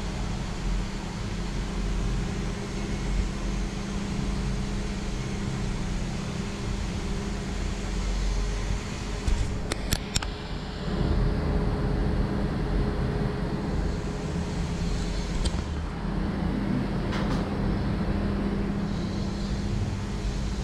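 Electric water booster pumps running with a steady hum, with a few sharp clicks about ten seconds in.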